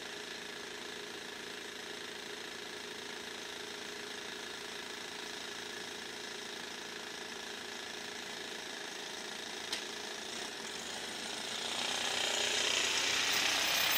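Railroad crossing warning bell (KLD-4013) ringing steadily, the gates down and the signal lights flashing. Over the last few seconds a rushing noise swells as a train approaches the crossing.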